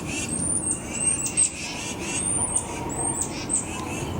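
Birds calling over and over, high sweeping chirps coming in quick pairs several times a second, over a low steady background rumble.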